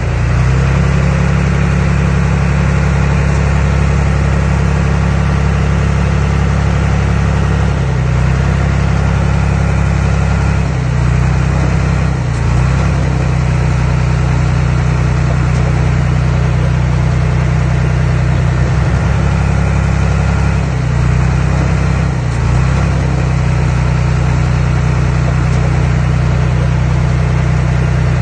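Diesel engine of an earthmoving machine running loud and steady, with a low rumble. The engine note dips briefly a few times as the load changes.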